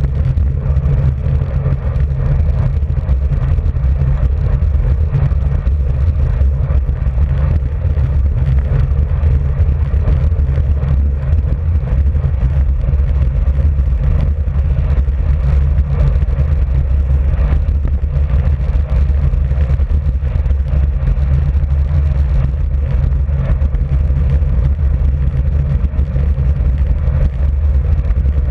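Steady wind rumble on a bicycle-mounted camera's microphone while riding at about 31 to 38 km/h, with road noise underneath.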